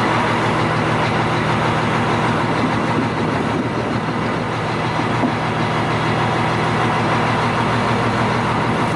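Fishing boat's engine running with a steady, even drone.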